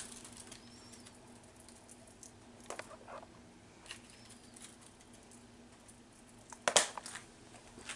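Grated Parmesan being spooned over a lasagna layer in a foil pan: faint pattering and light scrapes and ticks, with one sharp clink of the spoon about two-thirds of the way through. A faint steady hum runs underneath.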